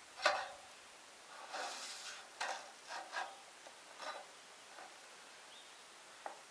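Thin painted sheet-steel door trim strips being handled and slid against each other: a sharp click at the start, a metal-on-metal scrape about a second and a half in, then a few light clicks and taps.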